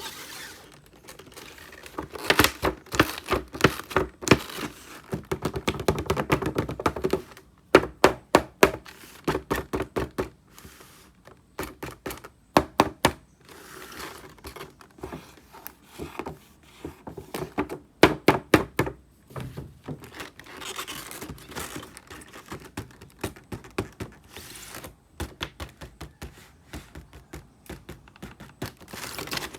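Hands unboxing a toy bus: irregular clicks, taps and knocks of its cardboard and plastic packaging being handled, some in quick runs.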